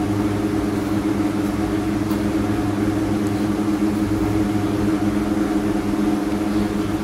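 A steady low machine hum, several even tones with no change in level, like a motor or appliance running in the room.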